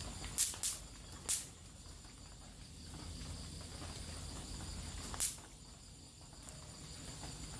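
Electric mosquito racket zapping insects with sharp, crackling snaps: three in quick succession near the start, then one more a few seconds later. Steady high insect trilling goes on underneath.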